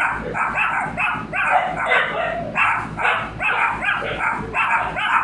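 Two small dogs barking, a rapid high yapping of about three barks a second, warning off the person above them.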